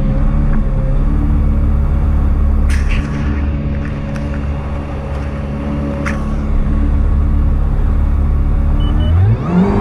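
Kawasaki Ultra 310 jet ski's supercharged four-cylinder engine running steadily at low speed, with a few short sharp clicks. Near the end the throttle opens and the engine note rises steeply as the craft starts to accelerate.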